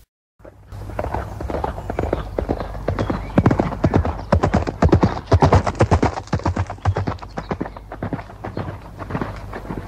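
Horse hooves galloping: a quick, dense run of hoofbeats that starts after a brief gap, is loudest around the middle and fades toward the end.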